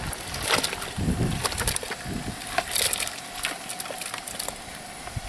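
Live crayfish clattering as they slide out of a plastic bucket into a steel stockpot of boiling water, many irregular clicks and rattles of hard shells against each other and the pot.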